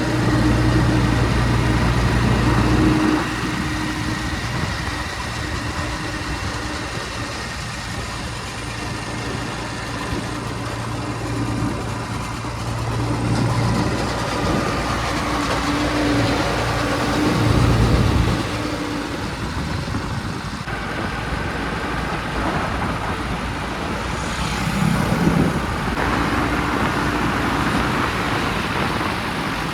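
Diesel engine of a JCB 3DX backhoe loader running while digging and loading, its speed rising and falling under load, with the loudest surges in the first few seconds and about two-thirds of the way through.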